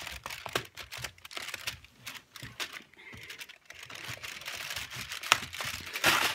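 Cardboard chocolate advent calendar box being handled and turned around on a plastic high-chair tray. Scattered, irregular taps and clicks of fingers and card, with a louder rustle near the end.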